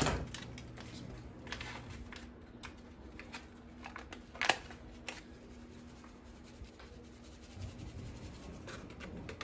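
Scissors snipping open a paper packet of ranch seasoning mix, with a sharp snip at the start and another about four and a half seconds in, then light paper rustling as the packet is opened and emptied. A faint steady hum runs underneath.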